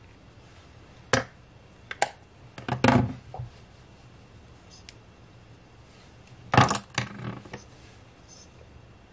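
Makeup brushes and cosmetic cases being picked up and set down: sharp clicks and clatters of small hard objects. There is one click about a second in, another at two seconds, a cluster near three seconds, and a louder clatter at about six and a half seconds.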